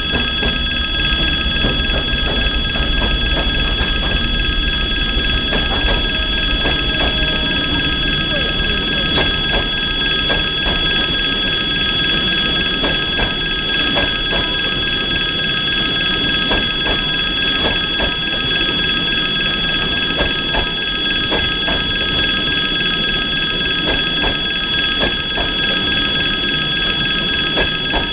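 Level-crossing warning bell ringing without a break while a passenger train rolls past, its wheels clicking regularly over the rail joints. The TEP70 diesel locomotive's engine rumbles low in the first few seconds as it passes, then the sound of the coaches alone continues.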